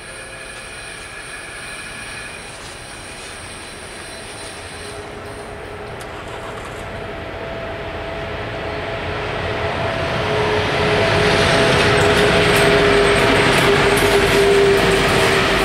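Hector Rail diesel freight train approaching and passing at a level crossing. It grows steadily louder over about ten seconds, with a steady whine over the rumble, and the locomotive goes by near the end.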